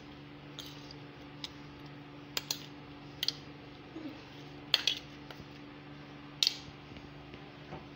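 A metal spoon clinking and scraping against a ceramic plate and an aluminium cooking pot as herb-and-tomato masala is spooned onto rice. There are several short, sharp, irregular clinks over a faint steady hum.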